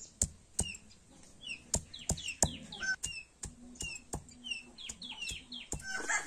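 A stone pestle knocking and grinding on a flat stone slab as garlic is crushed, in a series of sharp knocks about one to two a second. Small birds chirp throughout in short, falling chirps.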